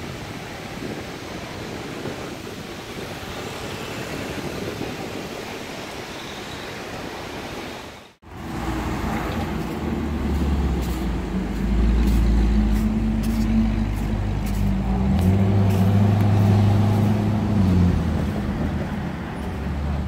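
Traffic noise on a city street with wind on the microphone, then, after a cut, a car engine running loudly and close by, a deep drone whose pitch shifts about two thirds of the way through before easing off near the end.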